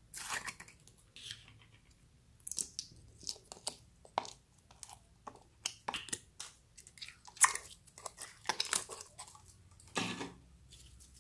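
Clear slime being pulled from a plastic jar and squeezed in the hand, giving off irregular sticky crackles and small pops as it stretches and traps air.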